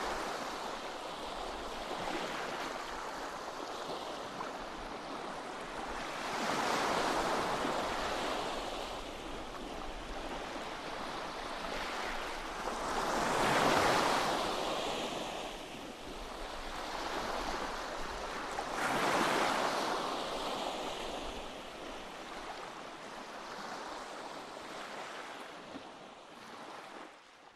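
Small waves breaking and washing up on a sandy beach, surging louder three times, loudest about halfway through, then fading away at the end.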